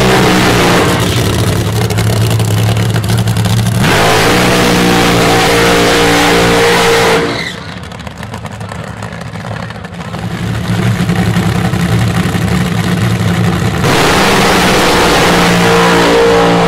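Nitro-burning nostalgia funny car engines running very loud at full throttle, a dense crackling blare over a deep engine note. About seven seconds in it drops to a quieter, lower running for a few seconds, then builds back up to full power.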